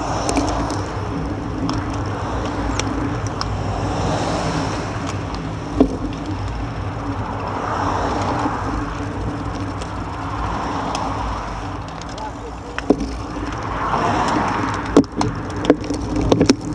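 Indistinct chatter from a group of road cyclists over the steady hum of nearby road traffic, with a few sharp clicks about six seconds in, at about thirteen seconds and near the end as the riders roll off from a stop.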